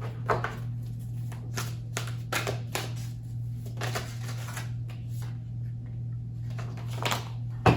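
A deck of reading cards being shuffled by hand: short, irregular card flicks and rustles, bunched together around two to three seconds in and again near the end, over a steady low hum.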